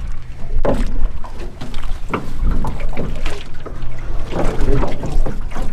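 A small boat being rowed: oars dipping and water splashing in irregular strokes, with wind buffeting the microphone.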